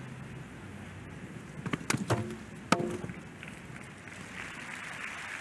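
A jump rail knocked down: several sharp wooden knocks and clatters about two seconds in, the loudest a single hard hit. Crowd applause starts to build near the end.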